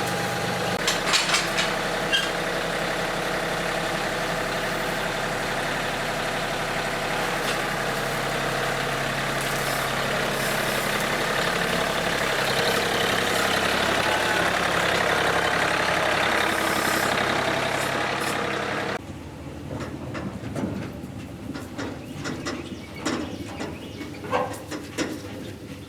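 Tractor engine running steadily, with a few knocks near the start. It cuts off abruptly about 19 seconds in, leaving scattered light knocks and faint birdsong.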